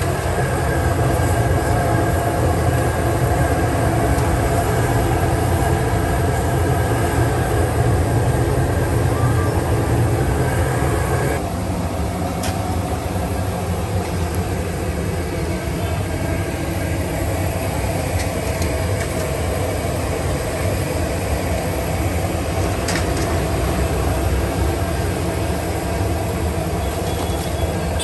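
Steady, loud mechanical roar with a deep rumble and a few held tones, changing in tone and easing slightly about eleven and a half seconds in.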